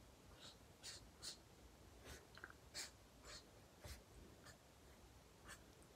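Black Promarker alcohol-based felt-tip marker stroking on drawing paper: short, faint strokes about every half second to a second, with near silence between them.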